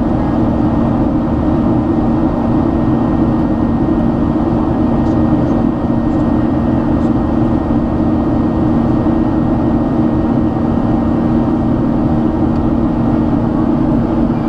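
Boeing 737-800's CFM56-7B turbofan engines running steadily in the climb after takeoff, heard inside the cabin as an even rushing drone with a steady low hum.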